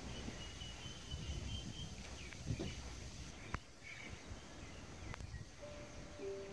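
Faint outdoor ambience with wind rumbling on the microphone and a thin, high bird call during the first two seconds, broken by a couple of sharp clicks. Piano music fades in near the end.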